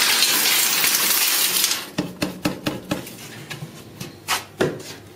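A pile of 22 carat gold scrap jewellery poured from a container into a metal tray: a dense jingling rattle for about two seconds, then a string of separate clinks as the last pieces drop and settle.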